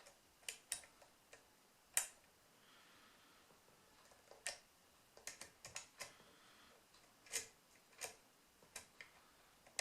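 Lock pick and tension wrench working the pins of a pin-tumbler rim cylinder lock, making small sharp clicks at irregular intervals, with a quick cluster of them about five to six seconds in.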